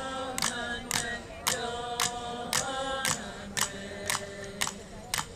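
Chanted song with long held sung notes over a sharp percussive beat of about two strokes a second.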